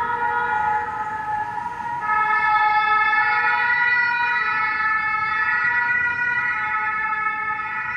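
Sirens of fire service vehicles leaving on a call: the French two-tone sirens of an ambulance and a fire engine. About two seconds in, a second, louder siren joins the first, and the two sound together over the low running of the engines.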